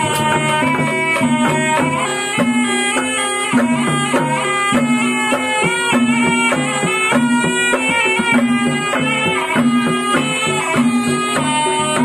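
Live Banyumasan ebeg accompaniment: a slompret, the Javanese double-reed shawm, plays a busy, reedy melody over a gamelan ensemble with drums keeping a steady beat.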